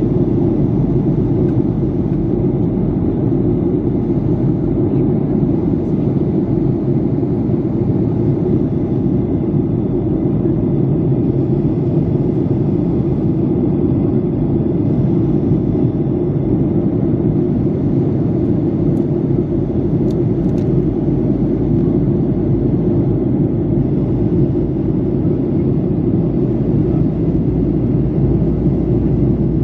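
Steady cabin noise of a Boeing 737-800 in flight on approach, heard from inside the cabin: the engines and airflow as a deep, even rumble.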